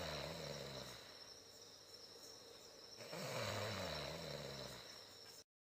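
A cartoon character's low, drawn-out vocal sound effect, heard twice at about two seconds each, over a faint steady hiss. The sound cuts off abruptly near the end.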